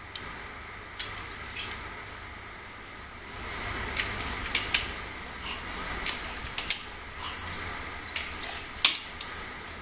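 Scattered sharp clicks and light knocks of metal air-rifle parts being handled, with three short hisses, each about half a second long.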